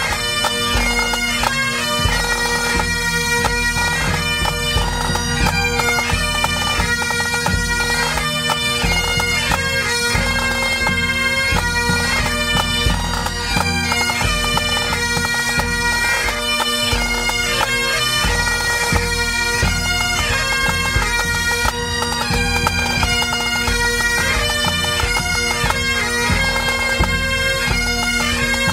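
Pipe band playing a tune: Great Highland bagpipes with a steady drone under the chanters' melody, and drums beating along.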